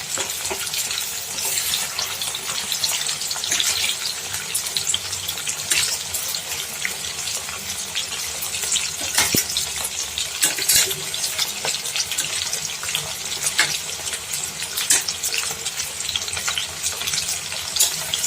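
Batter-marinated chicken pieces deep-frying in hot oil in a kadai: a steady sizzle with scattered pops and crackles.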